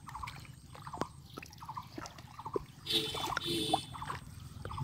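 Water trickling and splashing as a fine-mesh seine net is hauled by hand through shallow pond water. A faint chirp repeats about twice a second, and a louder sound rises briefly about three seconds in.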